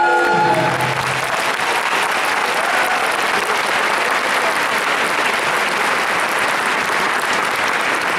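Large crowd applauding steadily, a dense even clapping. The last held note of choral singing dies away within the first second as the applause takes over.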